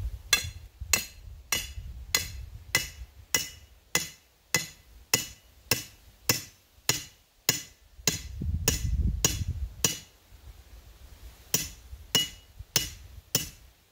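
Hammer blows on a metal rod driving it into the ground, about two strikes a second, each with a bright metallic ring. The blows pause midway under a low rumble, then come four more times near the end.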